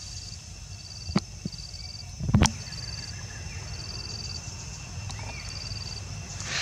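Insects chirping in short, high, rapid trills repeated about once a second over a steady high drone. Two sharp clicks come a little after a second in, and a louder thump about two and a half seconds in.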